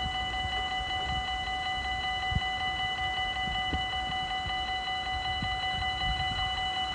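Dutch level-crossing warning bell ringing steadily while the barriers are down, with a low rumble and a few soft thumps underneath.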